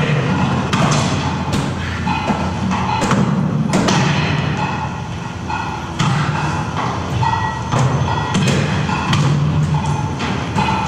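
Repeated heavy thumps and knocks at an irregular pace, over a steady low hum.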